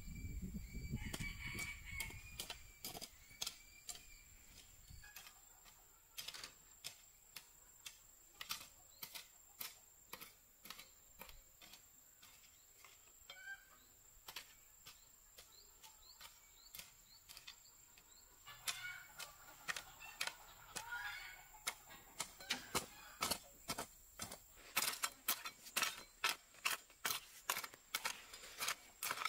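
Chickens clucking at intervals over a series of short sharp knocks, which come quickest near the end as a hoe chops and drags through dry soil. A thin steady high tone sounds throughout.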